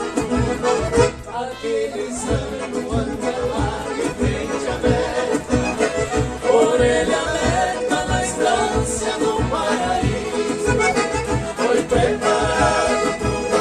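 Gaúcho dance music from southern Brazil: an accordion carries the melody over a steady bass beat, with some singing.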